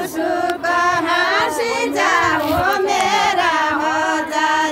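A group of women singing a Nepali Deuda folk song together, with a long held note near the end.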